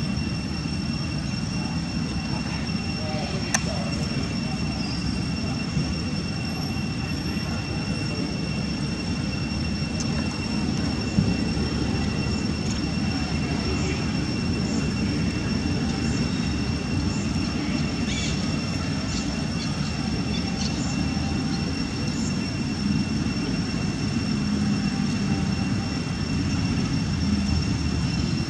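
Steady low outdoor rumble, like wind on the microphone or distant traffic, with two thin steady high whines above it and a few faint clicks.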